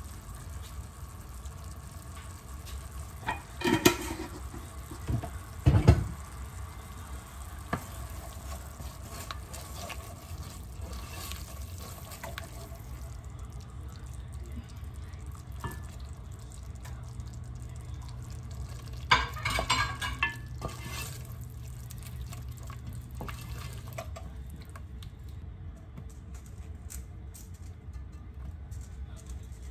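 Red curry with coconut milk bubbling and sizzling in a pot while it is stirred, with several sharp knocks against the pot: two about 4 and 6 seconds in, and a cluster around 20 seconds.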